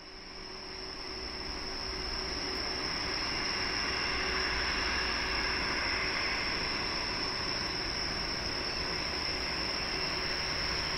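Jet engines of a Boeing 737-400 on approach to land, a rushing whine with low rumble that grows louder over the first few seconds and then holds steady. A thin steady high-pitched tone runs underneath.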